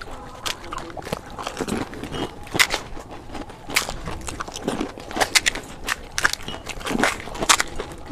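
Crisp fried panipuri (fuchka) shells being cracked open and crunched while eating: irregular sharp crackles mixed with chewing.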